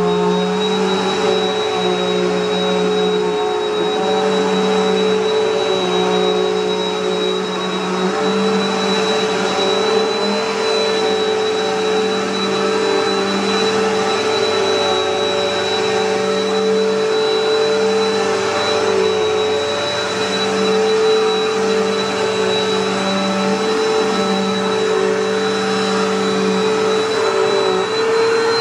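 Bissell PowerForce Next Gen bagged upright vacuum cleaner, with an 8-amp motor, running steadily with its brush roll on carpet. It gives a constant motor whine with a high tone over a lower hum.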